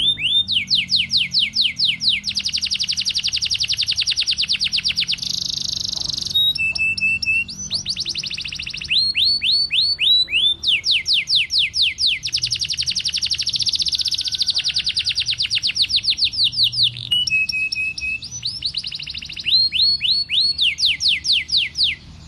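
Domestic canary singing a long, fast song: rapid trills of quick downward-sweeping notes strung one after another, with a few short held whistles between the rolls.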